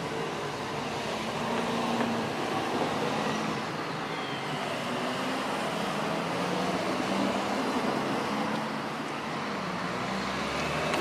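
Road traffic: cars driving one after another over the railway level crossing, their engines and tyres making a steady noise that swells as each passes.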